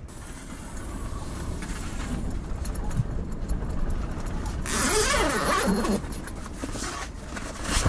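Wind rumbling against the canvas of a raised Alu-Cab pop-top roof tent, with fabric rustling and a louder rasping burst about five seconds in as the tent's side window flap is opened.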